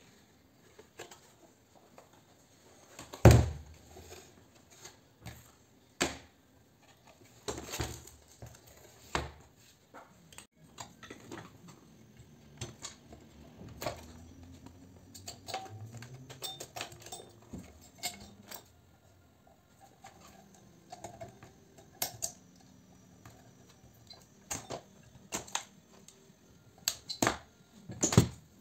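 Irregular clicks, knocks and rattles of an ironing device's aluminium boiler and white plastic housing being handled and turned over on a workbench, with one heavy thump about three seconds in and a cluster of knocks near the end.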